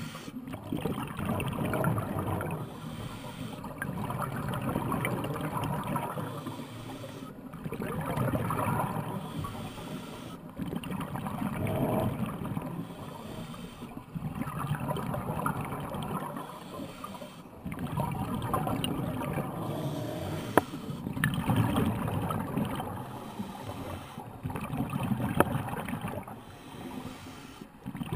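A scuba diver breathing underwater through a regulator, each breath a rush of gurgling exhaled bubbles, in a steady cycle about every three and a half seconds. Two short sharp clicks come in the second half.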